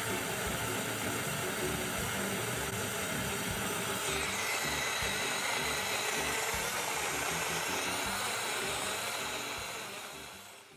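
Small battery-powered portable blender (Extsud 380 ml USB rechargeable) running steadily, its motor and blades whirring through apple, orange and kiwi thinned with water, blending freely rather than jamming. The sound changes a little about four seconds in and fades out near the end.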